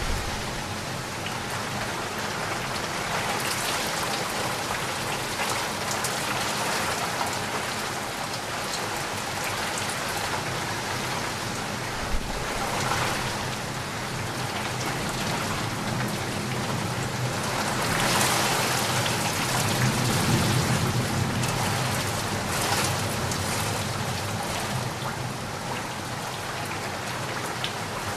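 Steady heavy rain falling: a dense, even hiss of drops that swells louder for a few seconds about two-thirds of the way through.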